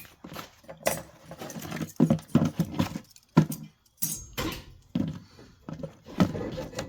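Metal brake parts and tools clinking and clanking in a run of separate sharp knocks and rattles, as pad hardware clips are popped off and parts are handled.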